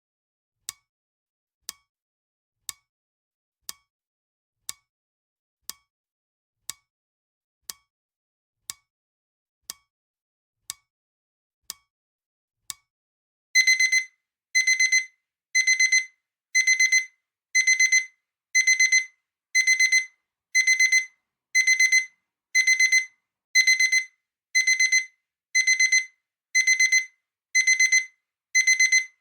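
Countdown timer ticking once a second, then, about 13 seconds in, the time runs out and the alarm starts: loud repeated high electronic beeps, about one a second.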